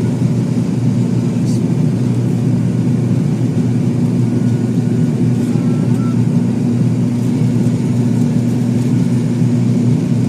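ATR 42 turboprop engines and propellers at climb power, heard inside the cabin as a loud, steady drone with two deep humming tones, one an octave above the other.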